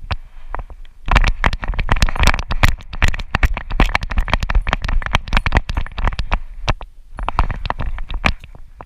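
Loud, close scratching and rustling full of rapid clicks, in one long spell and then a shorter one near the end.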